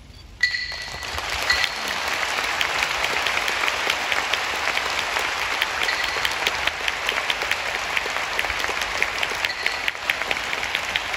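Sumo crowd applauding, breaking out suddenly about half a second in as the bout is decided, then keeping up a steady patter of clapping with no cheering.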